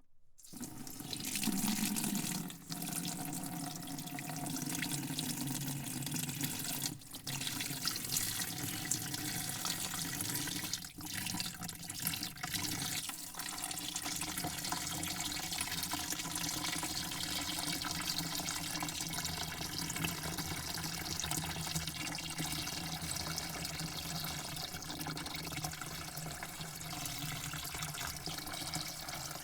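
A spray of water hissing into a bucket, steady throughout, with a few brief breaks in the flow in the first half.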